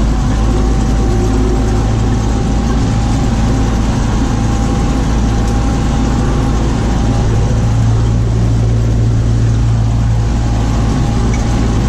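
Tractor engine running steadily while a stalk shredder works sunflower stalks: an even drone with a faint constant whine over it.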